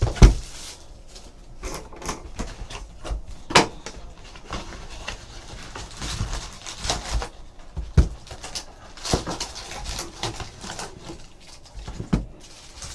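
Hands opening a sealed trading card box and its packs: irregular crinkling and tearing of wrappers and cardboard with scattered taps and knocks, the sharpest just after the start and about 8 seconds in.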